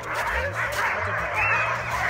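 Many sled dogs barking and yipping at once, a dense, continuous chorus of overlapping calls, over a low steady hum.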